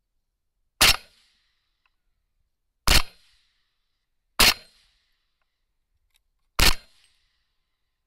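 Four rifle shots, each a sharp crack with a short fading tail, fired about one and a half to two seconds apart.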